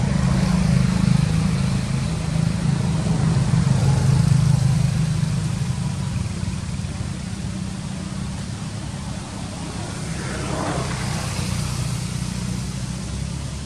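A motor vehicle's engine running as a steady low hum, loudest in the first few seconds and then easing off. A faint sweep in pitch comes about ten seconds in.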